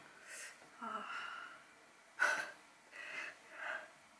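A woman's short breathy vocal sounds, about five quick breaths and gasps with no words, the loudest about two seconds in.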